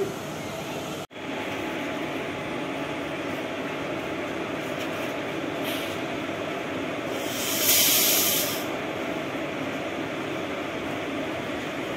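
Steady rumble and hum of a train at a railway station, broken by a brief dropout about a second in, with a louder burst of hissing a little after halfway.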